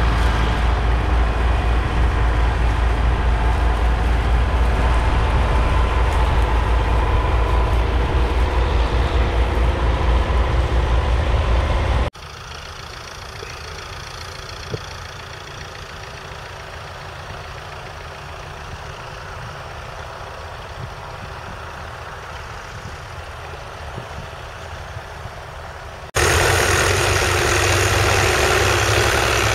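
David Brown 996 tractor's 3.6-litre four-cylinder diesel engine running under load while ploughing, heard close with a steady low throb. About 12 s in it cuts abruptly to a quieter, more distant engine sound, and it jumps back to loud, with more hiss, near the end.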